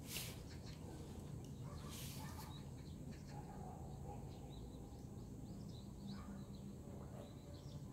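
Quiet open-air ambience: a low steady rumble with scattered faint small-bird chirps. Two short rushing noises, one right at the start and one about two seconds in.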